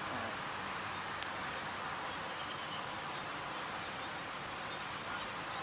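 Steady outdoor background hiss with no distinct event apart from a faint click about a second in.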